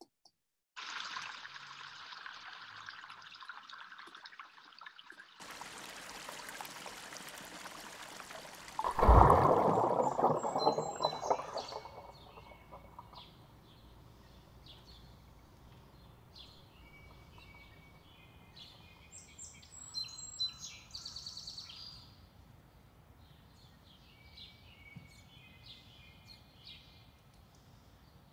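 Film soundtrack of nature ambience: a rushing, water-like noise, then a sudden loud surge about nine seconds in that dies away over about three seconds. After it, small birds chirp on and off, with a brief trilling burst a little past the middle.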